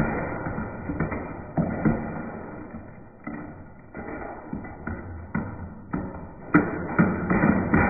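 An electric fan running while its brittle plastic blades are struck by a screwdriver: a muffled clatter with sharp knocks and taps. The level sags over the first few seconds and then builds again with heavier knocks.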